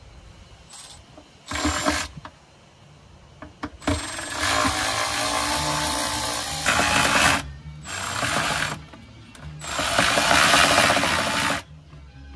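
Small handheld cordless electric screwdriver running in five bursts, the longest about three seconds, working the screws of a tail light housing.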